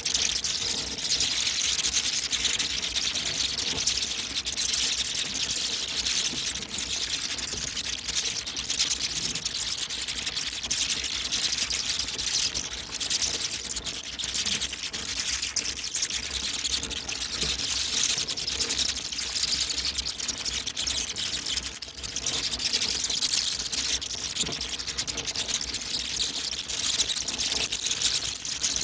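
A swarm of bats flying out of a roost: a dense, continuous rush of many fluttering wings, mostly high in pitch, with a brief dip in loudness about twenty-two seconds in.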